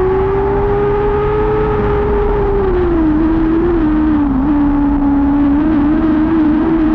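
Lightning sprint car engine running hard at high revs. The pitch rises slightly, drops back about three seconds in as the driver lifts, then holds lower and steady.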